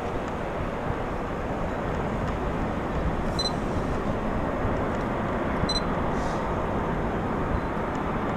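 Steady low rushing noise, growing slowly louder: the sound of a JR East 200 series Shinkansen approaching the station before it comes into view. Two short high beeps sound about three and six seconds in.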